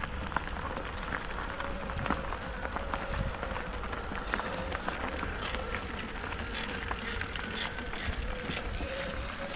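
Mountain bike riding on a gravel forest track: wind buffeting the camera microphone and tyres rolling over gravel, with many small clicks and rattles from the bike and a faint steady whine.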